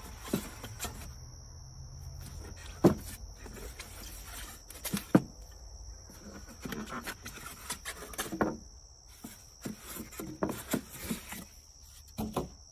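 Plastic cooler legs and styrofoam packing being handled: rubbing and scraping of styrofoam with a few sharp knocks, the loudest about three and five seconds in. Crickets buzz steadily at a high pitch underneath.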